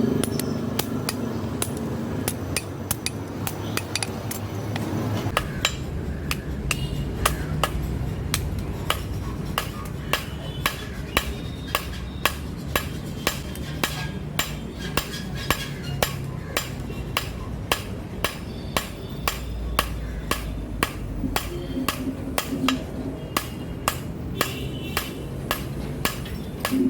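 Hand hammer striking steel on an anvil in a steady rhythm of about two blows a second, forging a billhook blade, over a low steady rumble.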